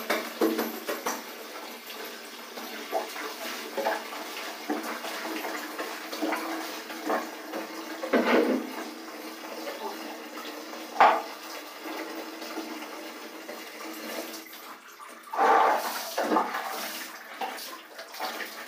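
Clothes being washed by hand: wet cloth scrubbed, lifted and wrung, with water splashing and sloshing in plastic buckets and a steel tub. A single sharp knock about eleven seconds in, and heavier splashing a few seconds before the end.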